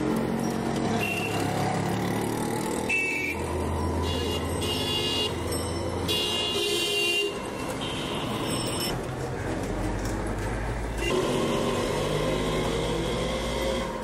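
Busy street traffic: motor engines running, with vehicle horns tooting several times.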